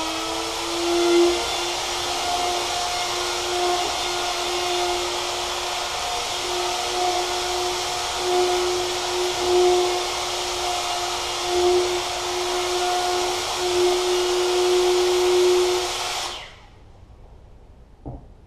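Handheld router running a homemade braid-relief cutter along the slots of a wooden slot-car track, a steady high whine under load. It is switched off about sixteen seconds in and winds down quickly, followed by a single light click.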